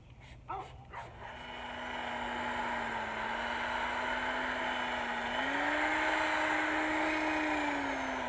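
A spray bottle squirts twice about half a second in, then a corded electric drill fitted with a coarse sanding disc starts and runs, a steady motor whine with sanding hiss as the disc wet-sands an oxidized plastic headlight lens. The whine steps up in pitch about five seconds in and dips near the end.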